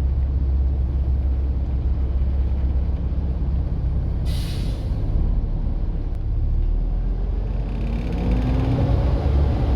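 Volvo B7TL bus's six-cylinder diesel engine running with a steady low rumble. There is a short hiss of released brake air about four seconds in. Near the end the engine note and a whine rise together as the bus pulls away.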